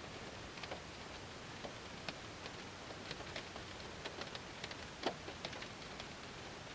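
Rain drops pattering on a car's window and body, heard from inside the car: a steady soft hiss with scattered sharp taps of individual drops, one louder tap about five seconds in.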